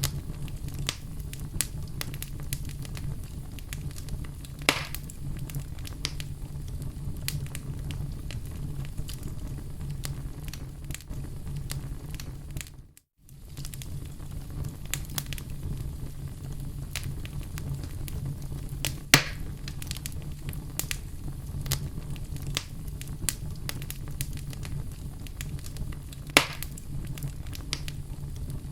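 Wood fire crackling in a fireplace: a steady low rumble of flame under constant small snaps, with three louder pops spread through. About halfway through the sound cuts out for a split second, then carries on as before.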